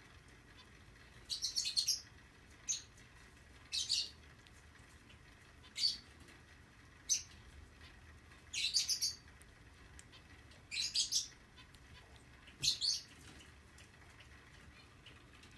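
Zebra finch giving short bursts of high, rapid chirps, about eight bursts a second or two apart, stopping near the end.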